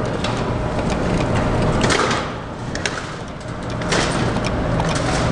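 Claw machine in play: its claw mechanism running with clicks over a steady noisy background, which drops down for a second or so mid-way and comes back.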